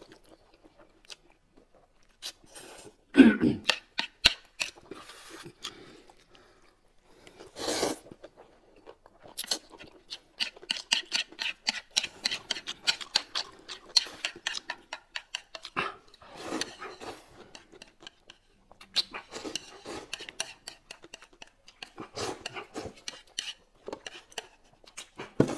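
Eating sounds: noodles slurped in a few loud bursts, with chewing and chopsticks clicking against plates and bowls.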